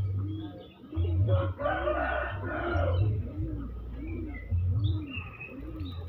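Market birds calling: small birds chirping throughout, and a louder rooster crow about one and a half to three seconds in, over a low pulse that repeats evenly.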